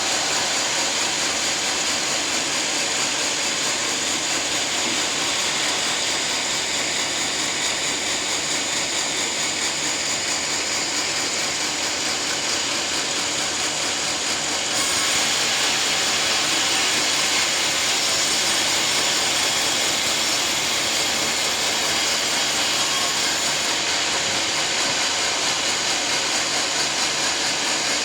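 A sawmill running steadily as its blade saws through a teak log. The noise grows brighter and a little louder about halfway through and stays that way for some nine seconds before settling back.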